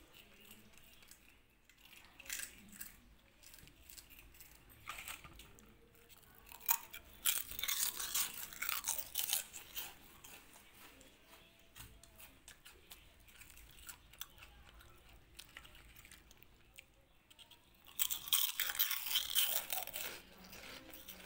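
Kittens crunching and chewing pieces of Kurkure, a crisp corn-puff snack, in irregular bursts of crackly crunching. The loudest stretches come around the middle and again near the end.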